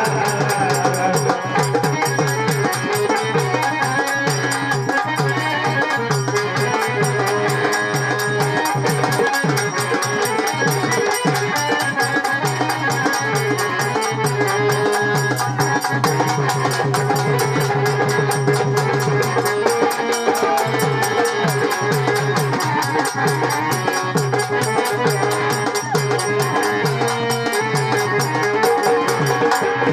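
Marathi folk music: a woman's devotional song over a rhythmic drum and percussion accompaniment with a steady low drone.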